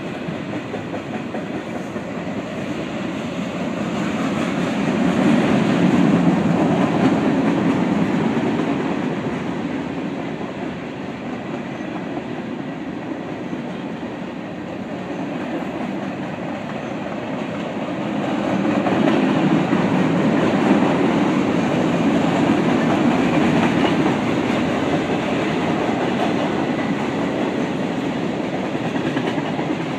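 Freight cars of a mixed freight train rolling past, the steady rumble of steel wheels on the rails. It swells louder twice, about five seconds in and again near the twenty-second mark.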